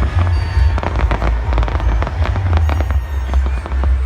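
Large aerial fireworks display in a dense barrage: rapid overlapping bangs and crackles over a continuous low rumble.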